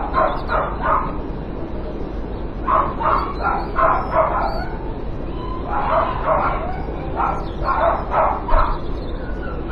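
Dog barking in quick bursts of several barks at a time, with short pauses between the bursts, over a steady low hum.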